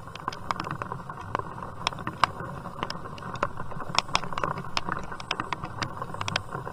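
Raindrops tapping at irregular intervals on a plastic bag over the camera, over a steady hiss of rain.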